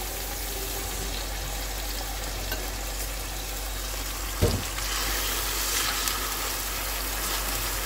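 Marinated chicken pieces sizzling in hot oil in a frying pan, a steady hiss. A single knock comes about four and a half seconds in, and the sizzling is a little louder after it.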